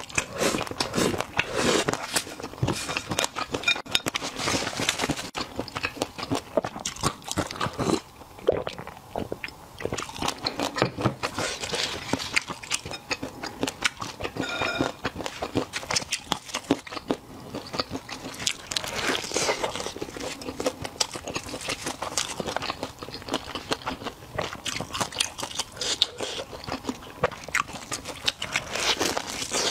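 Close-miked ASMR eating sounds: chewing and crunching bites of a crispy, chili-coated fried chicken drumstick, a steady stream of small crackles and clicks.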